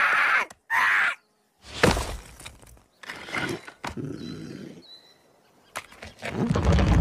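Animated small creature's high whimpering cry in two short bursts, then a sharp thud about two seconds in as its wooden body falls onto rocky ground, followed by softer knocks and scrapes. A low rumble builds near the end.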